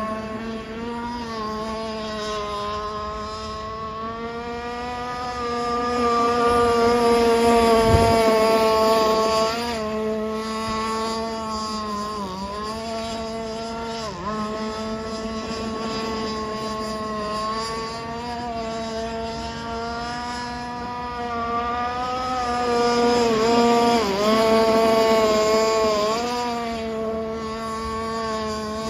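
Gas RC boat's two-stroke engine running at speed, with a steady buzzing note. The pitch dips briefly several times as the throttle is eased, and the sound grows louder twice as the boat runs closer.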